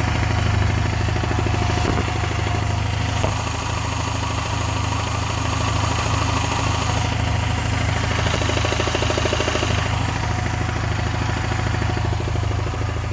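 Honda Silver Wing 600's parallel-twin engine idling cold, with a fast, steady mechanical clatter over the engine's hum. The knock is the same with the variator removed, and the mechanics find radial play in the crankshaft.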